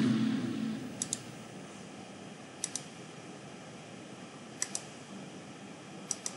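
Computer mouse double-clicking: four pairs of quick sharp clicks, spaced a second and a half to two seconds apart, over faint hiss. Background music fades out in the first second.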